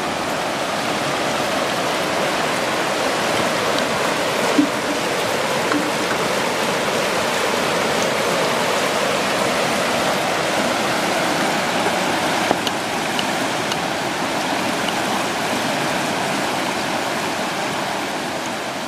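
Shallow, fast-flowing river rushing steadily over rocks and stone shelves, with a couple of brief, light knocks.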